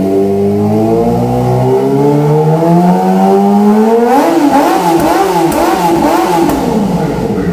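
Kawasaki ZX-25R's 249 cc inline-four engine revving through a Pro Speed aftermarket exhaust. The revs climb steadily for about four seconds, then the throttle is blipped quickly about twice a second with a few sharp cracks, before the revs drop back near the end.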